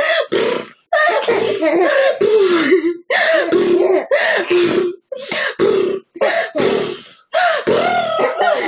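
Two-month-old baby cooing and gurgling, a string of short pitched vocal sounds with brief pauses between them.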